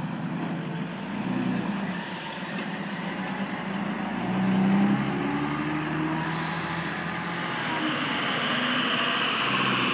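1956 Mack B pumper fire truck's engine running as it drives off across the intersection, its pitch shifting up and down and loudest about halfway through. Toward the end a broad hiss of tyres from passing traffic grows.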